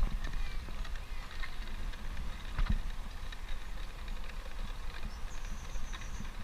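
Bicycle being ridden along a trail: a steady low rumble of tyres and movement with scattered light clicks and rattles, and a sharper knock about two and a half seconds in. A brief high, thin chirping tone sounds about five seconds in.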